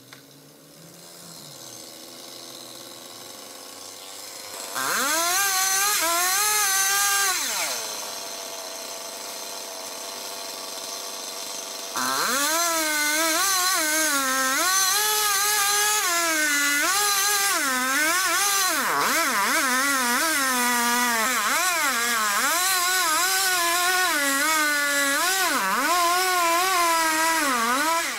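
Petrol two-stroke chainsaw revved hard for a couple of seconds, then dropping back to a low idle. About halfway through it runs at full throttle, cutting through the trunk, its pitch dipping and recovering again and again as the chain bogs in the wood.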